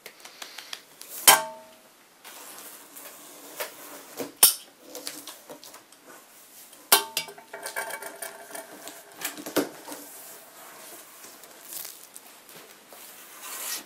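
Large cardboard box being opened: scissors slitting the packing tape, then the cardboard flaps pulled open over loose foam packing peanuts, with scattered rustling and a few sharp clicks and knocks.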